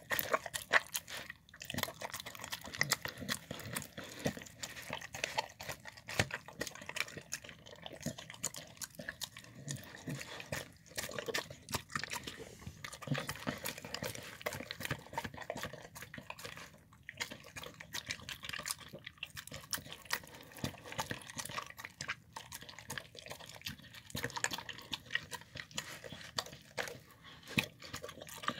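Dog eating wet mashed food of chicken, beans, brussels sprouts and bone-broth oatmeal from a plastic bowl: steady wet chewing and lapping, with many quick irregular clicks.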